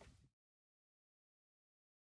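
Silence: the audio track cuts out entirely.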